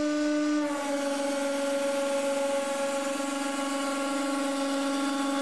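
150-ton hydraulic press running with a steady hum under the strain of pressing an aluminium cylinder. About a second in, the pitch drops slightly and a hiss rises as the load on the ram builds.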